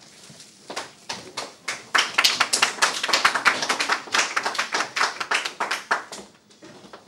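A small group of people clapping: many distinct, irregular claps that build up over the first two seconds, keep going for about four seconds, then die away.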